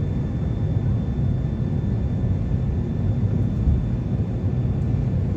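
Steady low rumble of airliner cabin noise heard from inside the cabin, with a faint high steady whine over it.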